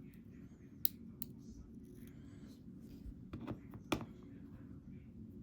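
Small sharp clicks and light clatter from the parts of an EVVA ICS lock cylinder being handled as it is taken apart, with distinct clicks about a second in and again near four seconds.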